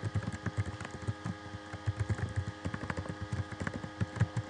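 Typing on a computer keyboard: a quick, irregular run of key clicks over a steady faint electrical hum.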